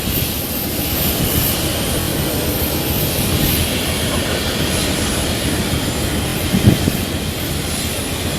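Airliner's engines running, a steady even noise heard from inside the cabin, with one brief knock near the end.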